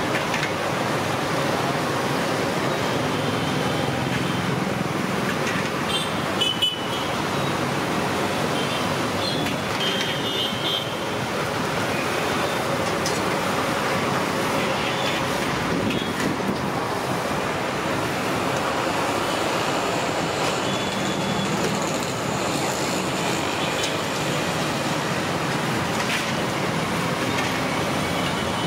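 Steady hiss of bondas deep-frying in a large iron kadai of oil, mixed with street traffic noise and a few brief horn toots; a single sharp knock about a quarter of the way through.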